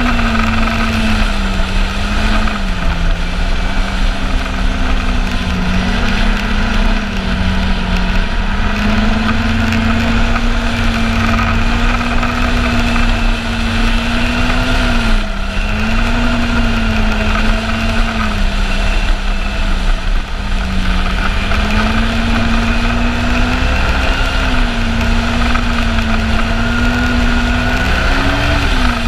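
A Yamaha Apex snowmobile's four-stroke engine running at a steady trail-riding speed. Its pitch wavers slightly up and down with small throttle changes, over a constant low rumble.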